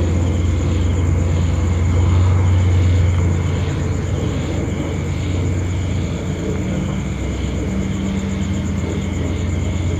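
A vehicle engine running steadily with a low hum, easing slightly about three seconds in.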